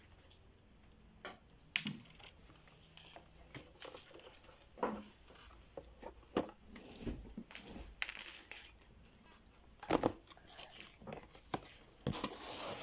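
Hands working slime and craft materials: irregular crinkles, clicks and squishing sounds, with a denser rustle near the end.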